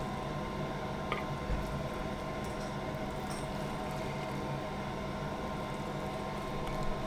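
Cooked jambalaya and rice being spooned out of the pan onto plates: soft squelches and a light click a little over a second in, over a steady hum.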